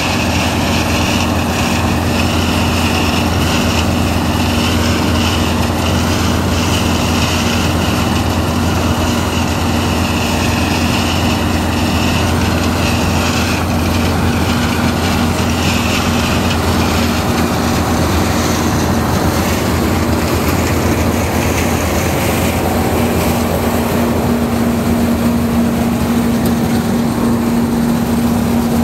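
Zmaj 170 RM combine harvester running steadily while harvesting soybeans: a continuous drone of the engine and threshing machinery, with a steady hum that grows a little stronger in the last few seconds.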